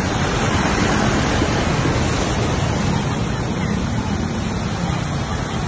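Steady rush and splash of floodwater churned up by vehicles driving through a flooded street, with engine noise underneath; loudest in the first couple of seconds as a truck ploughs through the water.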